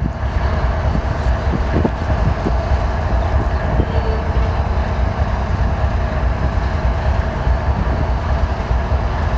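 Heavy diesel engine running steadily: a deep rumble under a steady hum, with a few faint knocks.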